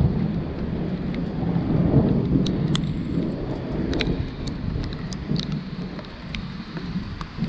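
Thunder rumbling from a thunderstorm, swelling at the start, loudest about two seconds in and easing off after about five seconds, over steady rain with scattered sharp drip ticks.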